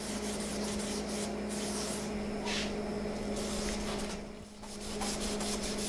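Hand sanding of a painted wheel, an abrasive scrubbed back and forth over the metal in repeated strokes to take off the old paint, with a short pause a little past four seconds in.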